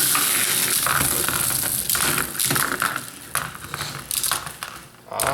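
Plastic Bakugan toy balls rolling and spinning across the arena with a hissing whir, then clacking against each other and the arena walls in a flurry of clicks that thin out and die away.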